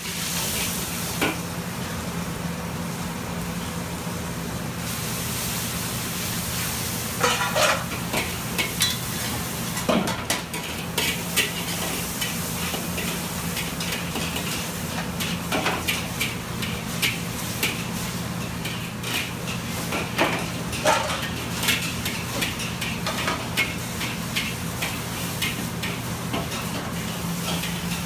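Chicken stir-frying in a wok on a restaurant wok range: a metal ladle and spatula clank and scrape against the wok amid sizzling, many times, over a steady low hum.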